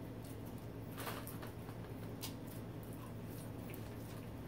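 Close-up mouth sounds of someone chewing french fries and a cheeseburger: scattered soft wet clicks and smacks, the strongest about a second in, over a steady low hum.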